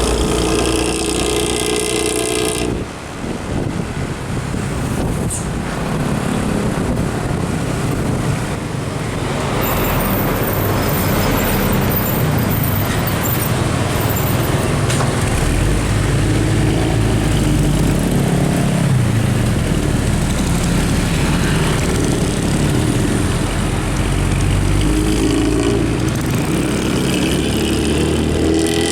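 Intercity bus engine running with a snoring 'ngorok' aftermarket exhaust, mixed with highway traffic noise. The sound changes abruptly about three seconds in, then becomes a continuous rumble with shifting engine tones.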